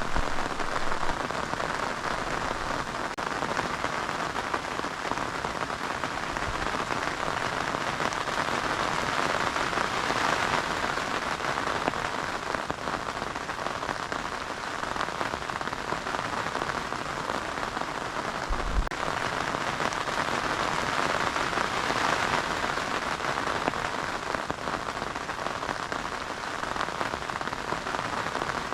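Steady heavy rain pattering on surfaces, an even hiss with no letting up.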